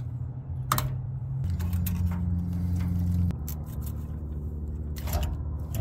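A screwdriver prying and scraping at the old fuel pump on its metal sending-unit bracket, with a few sharp clicks, over a low steady hum that shifts in pitch in steps.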